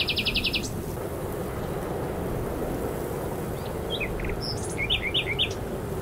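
Songbirds calling over a steady low rushing background. A quick, even trill of about ten notes ends about half a second in, and a handful of short chirps come about four to five and a half seconds in.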